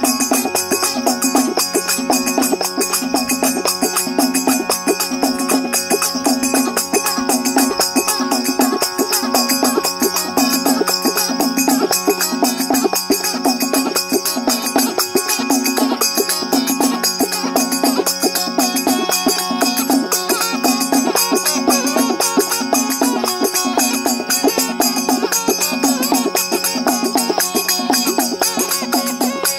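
A murli, the jogi's gourd pipe (been), playing a dhamal melody over its steady drone, accompanied by rhythmic shaken and struck hand percussion.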